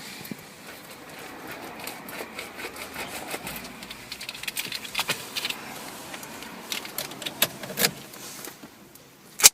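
A key scraping and tearing at the plastic shrink-wrap on a phone box: irregular crinkling and small clicks, with a sharp click near the end.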